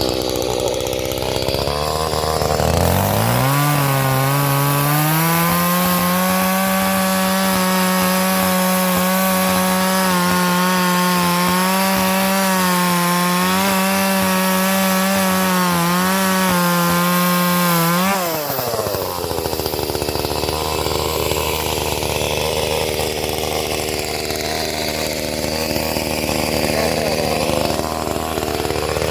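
Small Echo two-stroke chainsaw, just started, idling and then revving up to a high, steady full-throttle pitch about three seconds in. It holds there with slight wavering for about fifteen seconds, drops back to a low idle, and revs up again at the very end.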